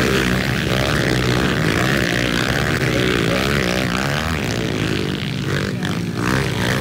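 Several small dirt-bike engines revving as the bikes ride around a dirt track, their pitch rising and falling over and over with the throttle.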